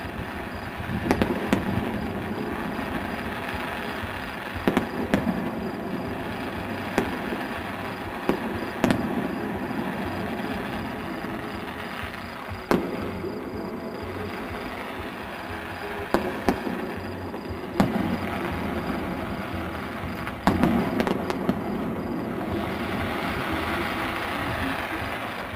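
Aerial firework shells bursting, about a dozen sharp bangs at irregular intervals of one to four seconds, some in quick pairs, over a steady background hiss.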